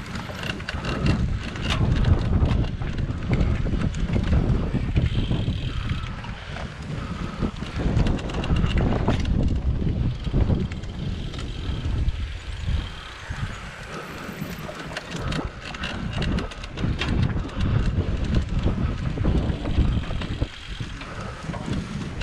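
Wind buffeting the microphone of a cyclocross bike at race pace, over the rumble of knobby tyres on a rough dirt track, with the bike knocking and rattling over bumps.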